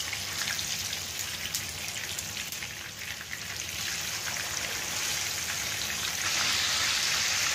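Raw chicken pieces sizzling and crackling in hot oil in a frying pan as they are laid in, getting louder about six seconds in.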